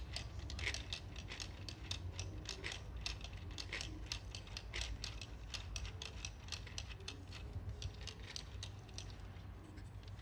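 Plastic Lego Technic engine model from the 858 Auto Engines set being turned by hand: its gears and mechanism click rapidly and evenly, about five clicks a second, thinning out near the end.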